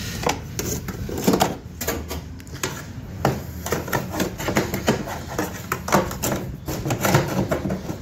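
Irregular scraping and knocking of a hand tool roughening the surface of a washing machine's plastic drain fitting.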